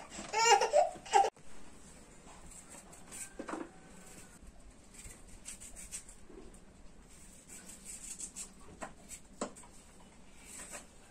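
A baby laughs and squeals in a short burst about a second in. After that, faint scattered scrapes and clicks of a knife peeling water yam.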